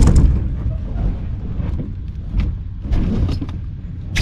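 A small boat's hull knocks and scrapes as it is tilted and set down, with a sharp knock at the start and a few lighter knocks later. Wind rumbles on the microphone underneath.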